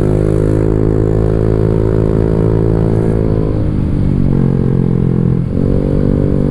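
Honda Vario 150 scooter's single-cylinder engine running on the move through a Black Devil R2 Seca long aftermarket exhaust, a steady engine note. The throttle is eased off briefly about five seconds in and then opened again.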